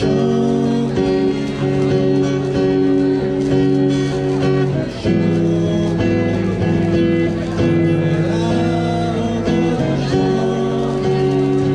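Live amplified music led by guitar: held chords that change every second or two, with a brief dip about five seconds in.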